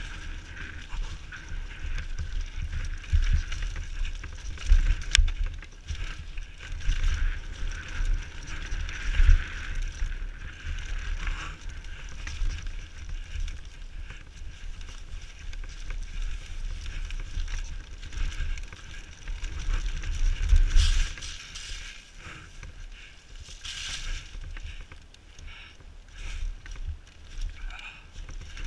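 Downhill mountain bike riding a rough trail, heard from a helmet camera: wind buffeting the microphone, tyre noise and the knocks and rattles of the bike over bumps, with a sharp click about five seconds in and rougher, louder stretches past the twenty-second mark.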